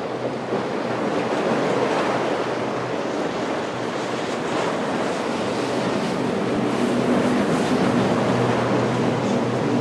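Outboard motors of a large center-console boat running at speed as it passes, a steady engine drone under the rush of its bow wake and the surf. The drone grows stronger over the second half as the boat comes closer.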